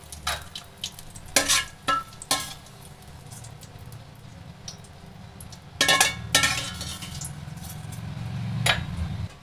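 Metal slotted spoon scraping and clinking against a stainless steel kadhai as roasted nuts and raisins are scooped out of hot ghee, in scattered strokes with quieter gaps, the busiest a bit over a second in and around six seconds in. A low steady hum runs underneath.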